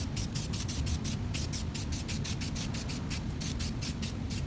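Aerosol can of 3M 45 spray adhesive spraying in a rapid run of short hissing spurts, about five a second, onto the back of a sheet of sandpaper.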